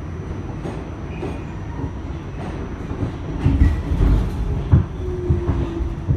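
A 1975–1978 Pullman Standard R46 subway car heard from inside as it rolls slowly into a terminal station: a steady rumble with wheel clatter. There are a few sharper knocks about three and a half to five seconds in, and a brief thin squeal near the end.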